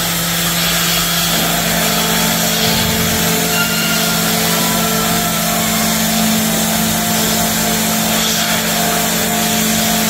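Milking parlour machinery running while cows are milked: a steady, loud mechanical hum with hiss over it, and a second, higher hum that joins about a second and a half in.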